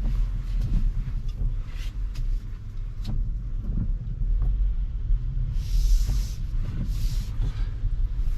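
Steady low rumble inside a Tesla electric car's cabin as it rolls slowly, with two brief hissing swishes about a second apart near the end.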